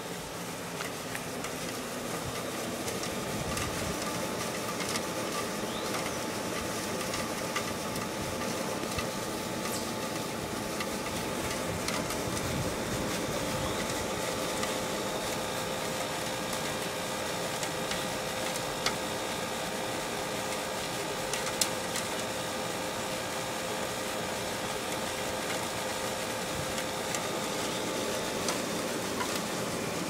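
Window air conditioner running: a steady whirring noise with a faint steady hum.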